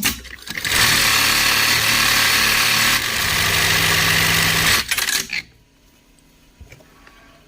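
DS 2010E industrial sewing machine running and stitching at a steady speed for about four seconds, with a change in its low hum partway through. It ends in a few short bursts and stops.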